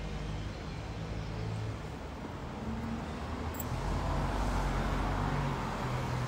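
A car driving past on the street, its tyre and engine noise swelling to a peak about four to five seconds in and then easing off, over a steady background of road traffic.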